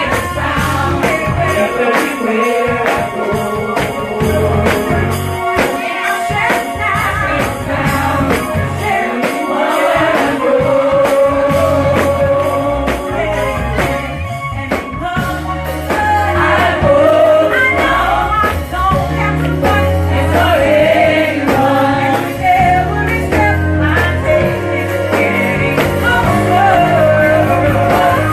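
Gospel praise song performed live: a lead singer and choir singing over a band with bass, drums and tambourine.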